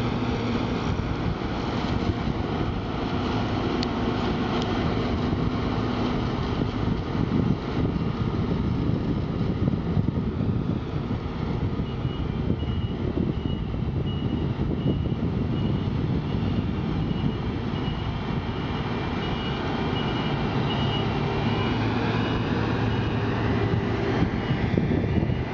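Claas Lexion 460 combine harvester running steadily at close range, its engine and machinery droning without a break. From about halfway, a reversing beeper sounds a regular series of high beeps, about two a second.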